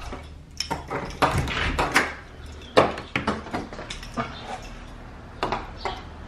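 A house door's knob turning and the door opening and shutting, then footsteps on a concrete garage floor: a string of clicks and knocks, the loudest a little before three seconds in.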